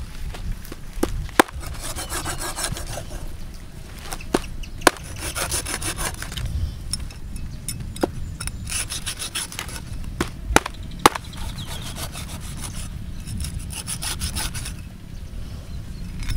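Meat cleaver scraping over a stingray's skin on a wooden chopping board: runs of rasping strokes a second or two long, with a few sharp knocks of the blade on the board.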